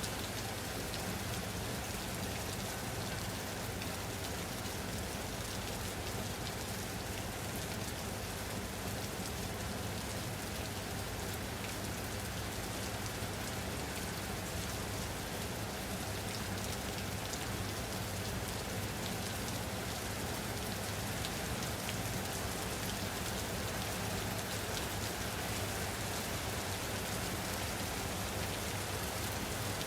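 Steady rain falling on a surface, an even hiss of drops with no break or change.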